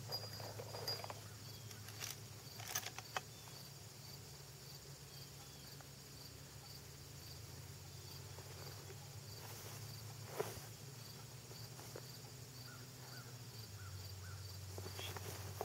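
Faint insect chirping, one high chirp repeated evenly over and over, above a low steady hum, with a few soft knocks near the start and another about two-thirds of the way through.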